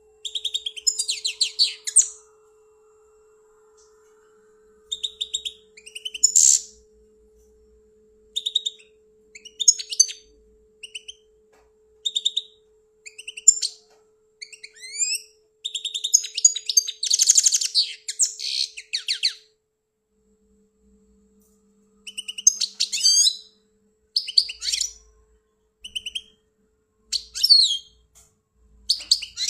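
European goldfinch singing: phrase after phrase of rapid, high twittering and trills separated by short pauses, with two longer breaks of a few seconds.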